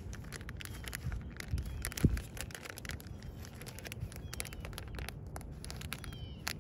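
Scattered small clicks and rustles of handling, with one louder thump about two seconds in, over a steady low rumble of outdoor background.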